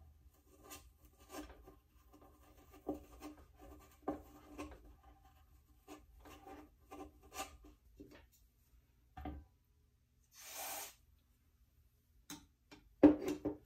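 Hands working small parts at an electronics repair bench: a run of light scrapes, rubs and ticks. A short hiss comes about three quarters of the way through, and a sharper clatter of knocks near the end is the loudest part.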